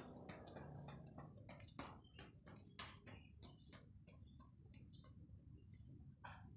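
Running footsteps on a concrete lane, quick sharp footfalls a few a second that grow fainter after about three seconds.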